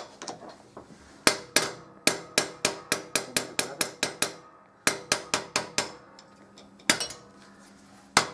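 Ball-pein hammer tapping the handle of a screwdriver used as a drift on a starter motor's gear housing clamped in a vise, driving out the worm shaft. Runs of quick, sharp metallic taps, several a second, with short pauses between runs.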